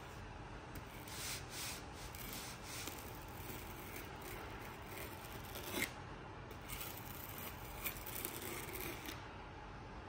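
Faint rubbing and handling noise from a kukri-bladed balisong (butterfly knife) being moved in the hand, with a sharp metal click about halfway through and a softer one about two seconds later.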